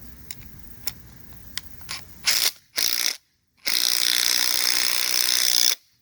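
Impact wrench hammering in three bursts, two short ones about two seconds in and then a steady two-second run, drawing a new wheel stud into the hub through a lug nut and washers. A few light clicks come before.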